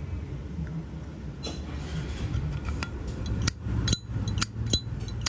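Zippo lighter lid being flicked open and snapped shut: sharp metallic clicks, about five in quick succession in the last two seconds, over a low steady hum.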